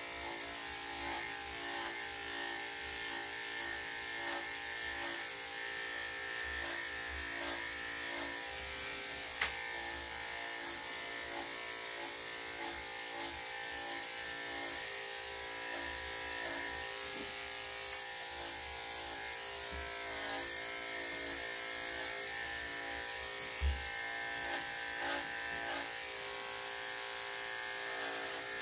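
Corded electric dog clippers with a #7 blade running steadily as they shave a dog's coat, with a few brief clicks, the sharpest about two-thirds of the way through.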